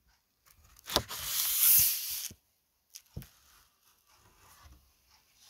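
Paper and camera handling noise. A sharp click is followed by about a second of loud rubbing hiss, like a paper sheet sliding or being rubbed. A tap and a low knock come about two seconds later, then faint rustling.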